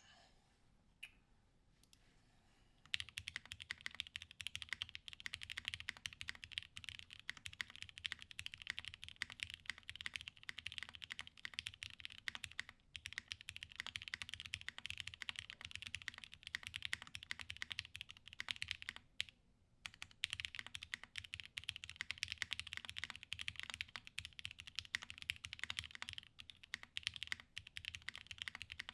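Typing on a plateless 7V mechanical keyboard with H1 60g switches in Cherry top housings and GMK keycaps: rapid, steady keystrokes that start about three seconds in, with two brief pauses.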